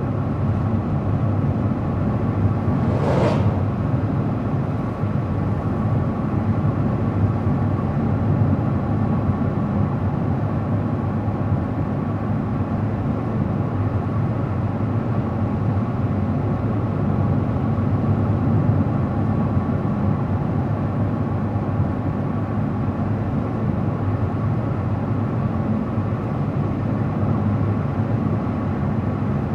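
A car driving at steady speed: constant engine and tyre noise on the road, with a brief whoosh about three seconds in.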